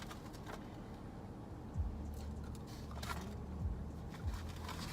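Faint handling of fast-food packaging, with a few soft clicks and rustles, over a low steady hum.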